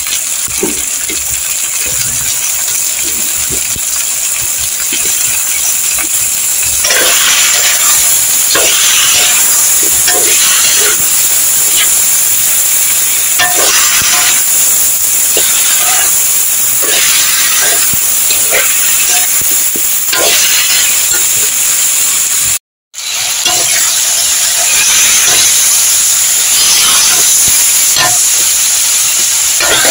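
Potato wedges and cauliflower frying in hot oil in a pan, a steady sizzle. From about seven seconds in, a spatula stirs and scrapes the pan in repeated strokes, about one a second. The sound cuts out for an instant about two-thirds of the way through.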